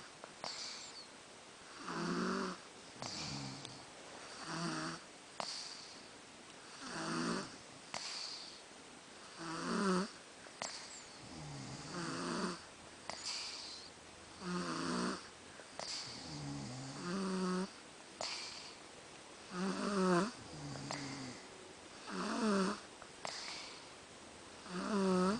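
A person snoring steadily in sleep: a rattling, pitched snore about every two and a half seconds, with a fainter breath between each.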